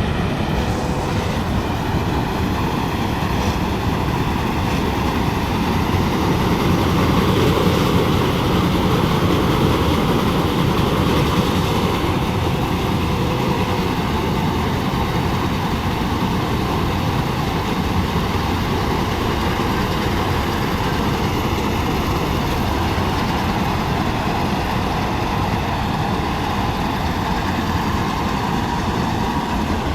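Malkit 997 combine harvester running steadily as it cuts paddy: its engine and harvesting machinery make a loud, continuous mechanical din.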